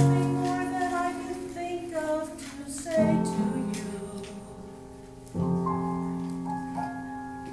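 A woman singing with piano or keyboard accompaniment, the chords struck three times and held under the sung line.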